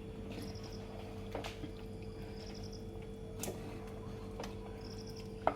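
Light stirring of chicken curry in a clay pot: a few sharp clicks as a spoon knocks against the pot, over a steady low hum. A short, high, pulsed chirp repeats about every two seconds.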